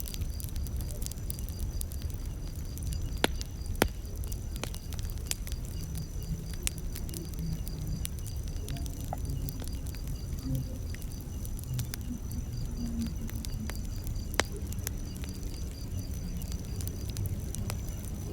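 Wood campfire crackling, with irregular sharp pops over a steady low rumble; the loudest pops come about three and four seconds in and again near fourteen seconds in. A steady high trill of crickets runs underneath.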